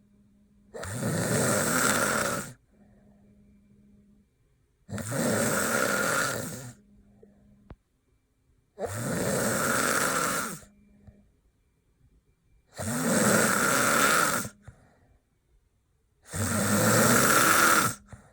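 A man snoring hard in deep sleep: five loud snores, each about two seconds long, coming about every four seconds with quiet breaths between.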